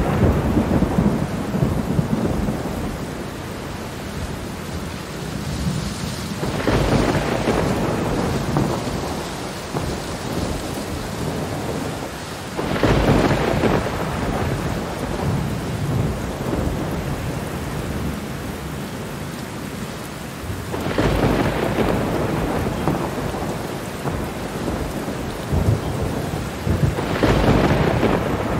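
Steady rain with rolling thunder: a peal swells up and fades every six to eight seconds or so, about five in all.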